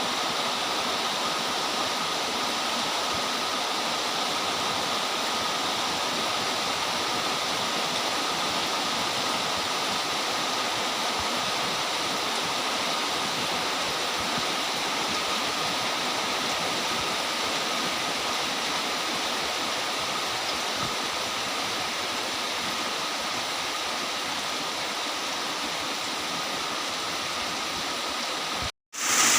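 Very heavy, torrential rain falling as a steady, even hiss. It breaks off for a moment near the end and comes back louder.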